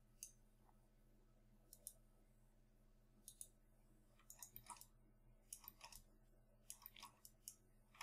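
Faint, scattered clicks of a computer mouse and keyboard over near-silent room tone, a few single clicks early and then small quick clusters through the second half.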